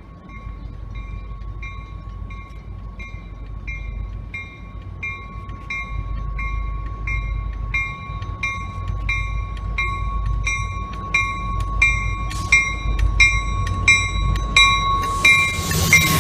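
Railroad grade-crossing bell ringing in an even rhythm, with a steady tone beneath, while the low rumble of an approaching MBTA commuter train grows louder. A sharp knock comes about three quarters of the way in, and near the end the train's noise swells as it draws close.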